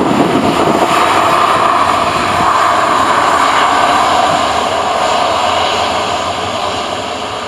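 Boeing 737-800's twin CFM56-7B jet engines running as the airliner rolls close past on the ground: a loud, steady rush with a whine in it, fading slowly over the last two seconds.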